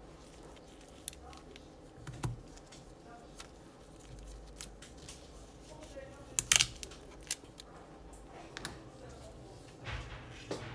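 Small clicks, taps and rustles of a smartphone being handled during a repair: gloved fingers work its flex cable and set the opened phone on a rubber work mat. The loudest is a short clatter of clicks about two-thirds of the way through, with single sharp taps about two seconds in and near the end.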